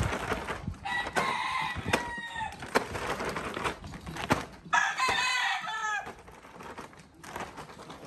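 Gamecocks crowing twice, one crow about a second in and a louder one just before the midpoint of the second half, over scattered sharp knocks and clicks.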